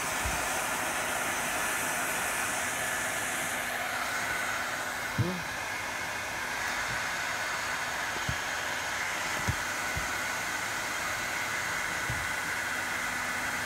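Handheld electric heat gun blowing steadily, a rushing hiss with a thin fan whine. A brief knock about five seconds in and a few fainter ticks later.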